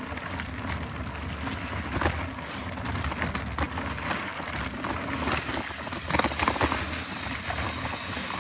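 Mountain bike rolling along a dirt trail: steady tyre and drivetrain noise, with the bike rattling and knocking over bumps, most sharply about two seconds in and again around six to seven seconds.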